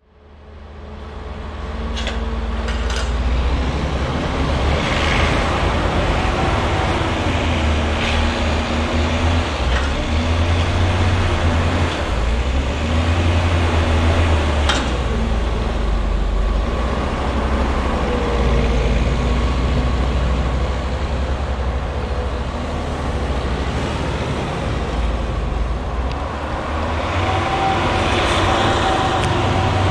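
Leitner LH500 snowcat's MAN D2866 six-cylinder diesel working under varying load while it pushes and spreads maize silage, with its tracks running over the pile. The sound fades in over the first couple of seconds, and several sharp knocks stand out along the way.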